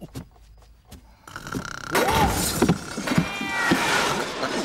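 A few faint clicks, then a loud, drawn-out yowling from a cartoon cat that swells and bends in pitch.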